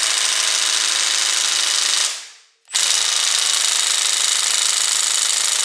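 Cordless impact wrench hammering on its lowest setting as it tightens a bicycle bottom bracket cup, in two runs of about three seconds each with a short stop a little past two seconds in.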